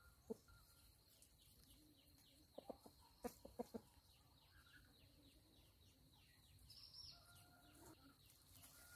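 Faint clucking of free-range chickens, a quick run of short clucks about three seconds in.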